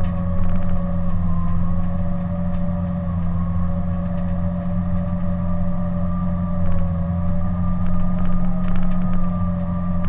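Caterpillar D10T bulldozer's C27 V12 diesel running steadily while working, heard from inside the cab: a deep engine drone with a steady whine over it and faint ticks now and then.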